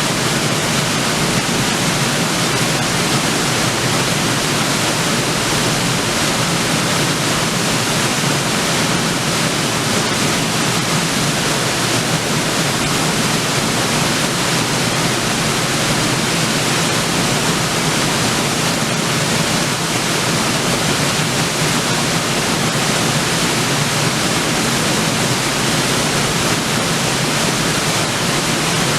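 River waterfall: water falling onto rocks in a steady, loud, even rush.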